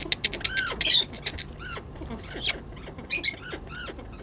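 Parrot making short squeaky chirps, a quick run of clicks and several sharp high squawks.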